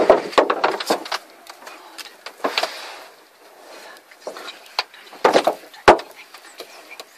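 Irregular sharp knocks and clunks inside a car. The loudest come at the very start and in a cluster about five to six seconds in.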